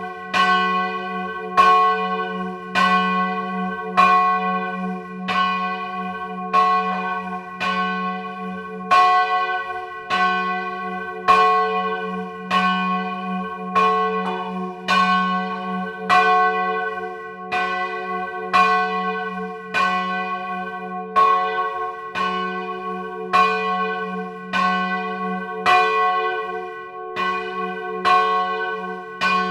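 A single church bell swung in full circles in the Italian 'a distesa' style, its clapper striking about once every 1.2 seconds in a steady rhythm. Each strike rings on with the same set of tones into the next, loud and close at the bell.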